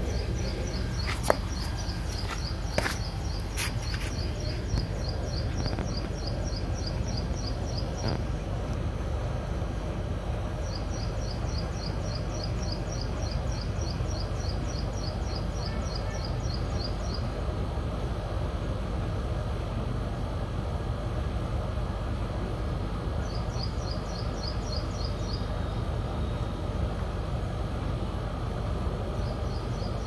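Outdoor ambience with a steady low rumble, broken four times by runs of rapidly repeated high chirps that last several seconds each. A few sharp clicks sound in the first few seconds.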